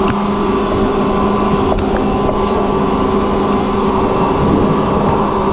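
Electric pressure washer running, its pump humming steadily under the hiss of the water jet spraying into a car's wheel well; the sound cuts off suddenly at the end.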